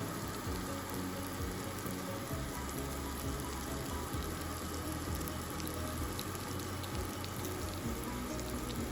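Food sizzling steadily on a George Foreman contact grill, with faint crackles, under soft background music.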